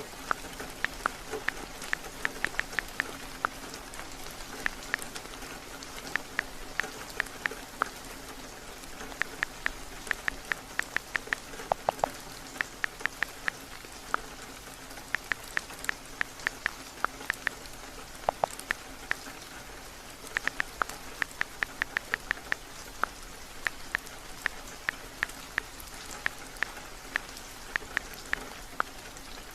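Steady heavy rain, with short runs of quick, sharp taps from typing on a phone's on-screen keyboard.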